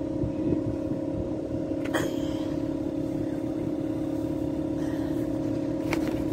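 A steady, even machine hum with a low rumble beneath it, broken by a brief sharp knock about two seconds in and another near the end.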